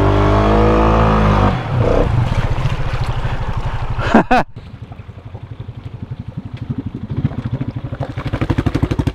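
Honda Rubicon ATV engine through an aftermarket RJWC exhaust, held at high revs with a deep tone, then dropping suddenly to a steady, pulsing idle, about a second and a half in. A short sharp sound with a quick rise and fall in pitch cuts in about four seconds in, and after it the idle goes on more quietly.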